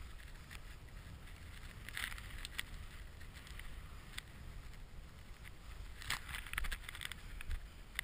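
Powder snow hissing and spraying as turns are made through deep snow, over a steady low rumble of wind on the microphone; the spray hiss flares up about two seconds in and again around six to seven seconds in.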